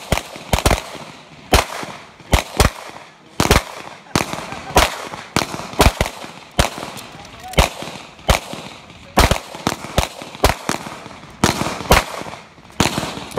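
Pistol shots fired in a long string, about two dozen loud cracks mostly half a second to a second apart, some in quick pairs.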